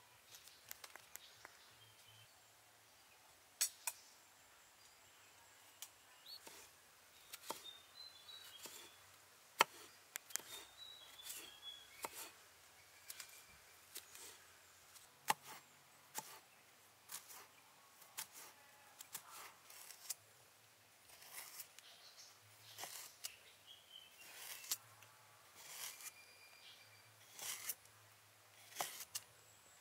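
Kitchen knife cutting a carrot on a wooden chopping board: irregular sharp taps as the blade goes through and strikes the board.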